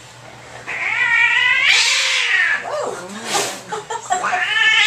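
Domestic cat yowling angrily while held for handling: a long, drawn-out yowl starting about a second in that breaks into a harsh, noisy sound, then another yowl rising near the end. The cat is upset and protesting at being restrained and examined.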